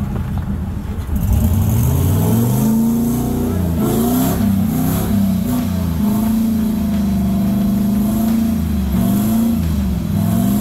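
Ford Bronco II engine revving under load on a slippery rock climb. The revs jump up about a second in, then rise and fall several times in throttle blips, holding steady for a while in the middle.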